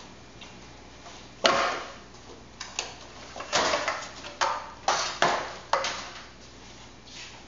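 Knife cutting raw meat on a cutting board: a string of knocks and short scraping strokes, the loudest about one and a half seconds in, then a quick run of them from about three and a half to six seconds.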